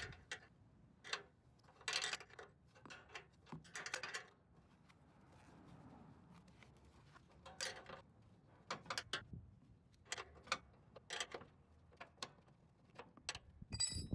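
Irregular metal clicks and clinks of a combination wrench being repositioned and turned on a 9/16-inch hex bolt in a snowblower's steel frame, loosening the bolt. A short ringing metal clink comes near the end.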